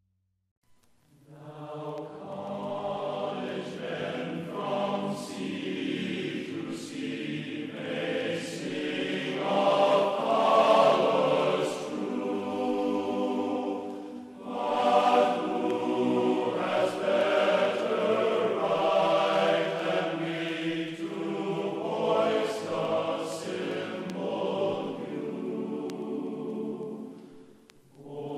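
Background music of a choir chanting in long held notes, starting about a second in.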